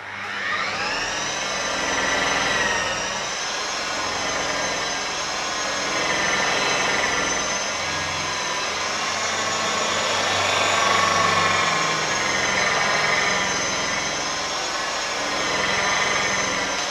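Electric rotary polisher spinning up about a second in, then running steadily with a high motor whine, buffing cut-and-polish compound on a fibreglass gunwale. The whine dips and swells a little as the pad is worked along the surface.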